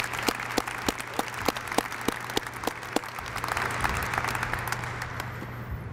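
Audience applauding, with one clapper close by keeping about three claps a second; the applause dies away near the end.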